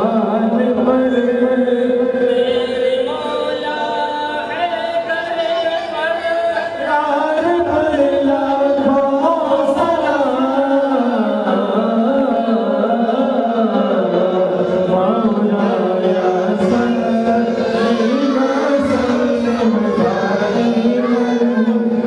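Men's voices singing an unaccompanied devotional chant through a microphone and PA, the melody moving in long held, wavering notes.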